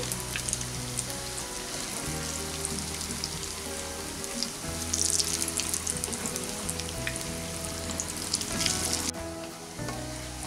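Pakoras deep-frying in hot refined oil in a kadai: a steady sizzle full of small crackling pops, which drops away abruptly about nine seconds in.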